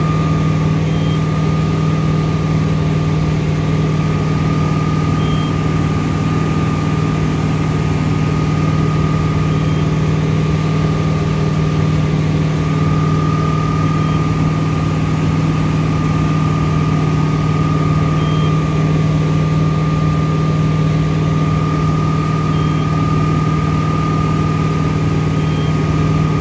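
Tow boat's engine running steadily under load at about 21 mph while pulling a waterskier, an even hum with the rush of water and wake beneath it.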